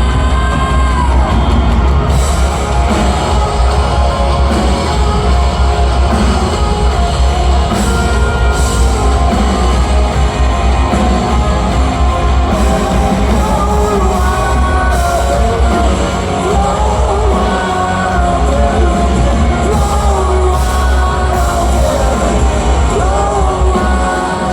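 Rock band playing live and loud, with singing over a heavy, steady bass.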